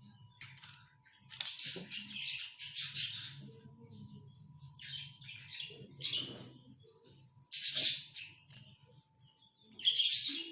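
Aseel chickens, birds with a winter cough and cold, making short hissy calls in about five separate bursts, the longest lasting about two seconds, over a faint steady low hum.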